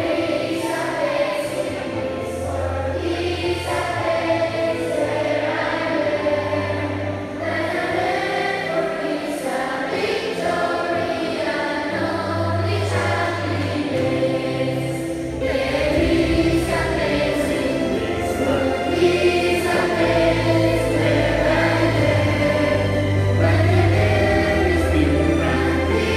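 Students singing the school hymn together as a choir, with held low bass notes underneath from an accompaniment.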